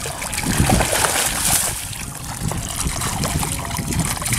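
Water splashing and trickling as a wet cast net is gathered and hauled up out of shallow water, water streaming and dripping off the mesh.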